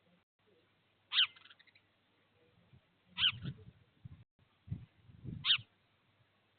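A small animal giving short, high-pitched calls that fall in pitch, three times about two seconds apart, with low rumbling noises around the later two.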